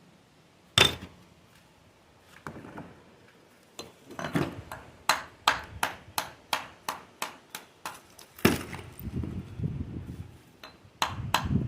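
A masonry tool knocking on stone while rustic stone is set into mortar. There is a sharp knock about a second in, then an even run of quick taps, about three a second, and another heavy knock near the end.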